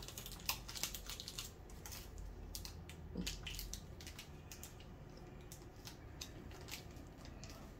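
Faint scattered clicks and crackles, thickest in the first three seconds, from two people eating dark chocolate squares: wrapper handling and chewing.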